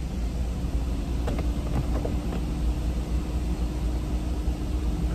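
BMW 420i convertible's electric soft top starting to open: a steady motor hum sets in about half a second in, over the low rumble of the idling car, with a few light clicks a second or two in.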